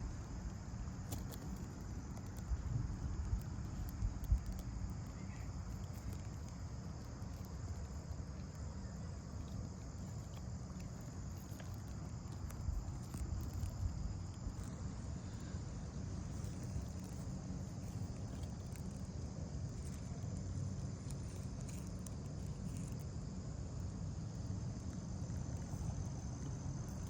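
A steady, high-pitched insect chorus singing in the background, over a continuous low rumble and a few faint knocks.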